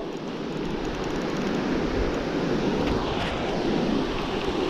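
Surf breaking and washing up a shallow beach, a steady rushing noise, with some wind on the microphone.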